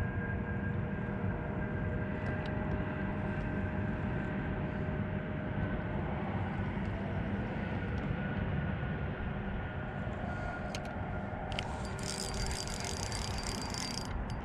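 A steady low motor drone with faint steady whining tones over it.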